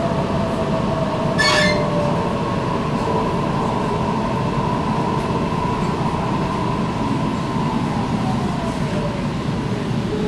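Interior of a Sydney Trains Waratah electric double-deck carriage under way: a steady rumble of wheels on track, with a brief sharp squeak about a second and a half in. Near the end, the electric traction drive's whine falls in pitch as the train slows.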